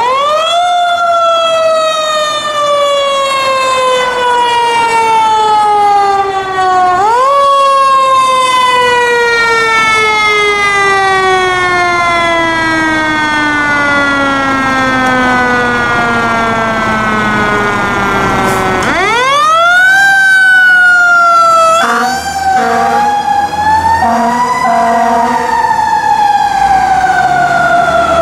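Fire truck's Federal Q mechanical siren winding up fast and coasting slowly down in pitch, wound up again about 7 seconds in and again near 19 and 24 seconds. A few short air horn blasts come about 22 seconds in.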